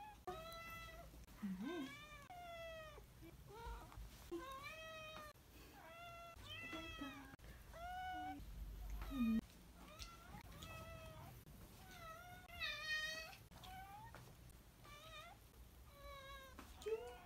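A long-haired domestic cat meowing over and over, more than a dozen drawn-out meows that rise and fall in pitch, about one a second. It is the cat's welcome-home greeting to its owner.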